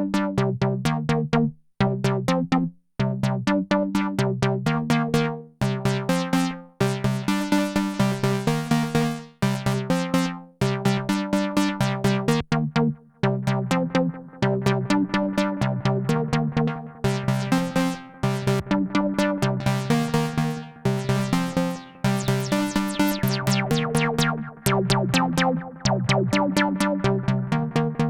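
Arturia MicroFreak synthesizer playing a fast repeating pattern of short, plucky pitched notes through a Behringer VD-400 analog delay pedal, the echoes filling in between the notes.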